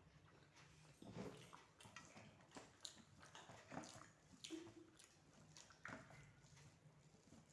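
Faint eating sounds: scattered soft smacks and clicks of a person eating rice and mashed boiled vegetables, over a low steady hum.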